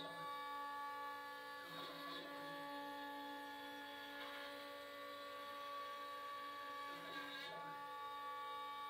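CNC router spindle running steadily, a 1/4-inch bit cutting a roughing pass in walnut, with a whirring glide from the stepper motors every two to three seconds as the gantry changes direction.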